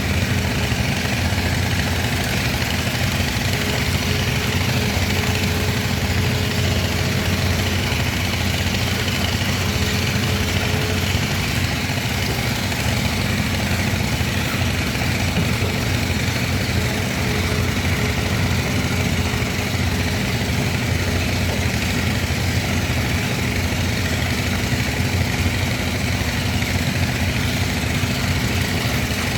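Excavator's diesel engine running steadily, with a fainter higher whine that comes and goes several times.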